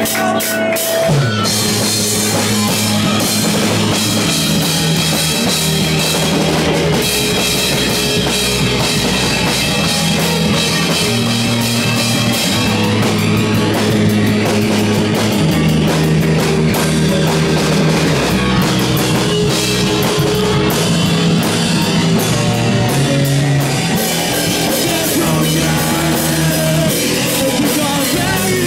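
Rock band playing live, with a drum kit and guitar; the full band comes in about a second in and plays on steadily.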